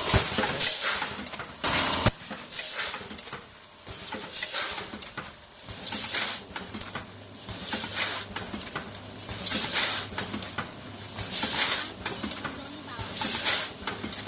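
Automatic granule packaging machine for seeds and bird food running through its cycle: repeated hissing bursts about every one to two seconds, with a few sharp clicks and a faint steady hum underneath.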